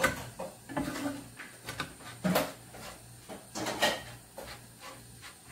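Short knocks and scrapes, about five, as cassava fritters are set down and shifted by hand in a frying pan of hot oil on a gas stove, over a low steady hum.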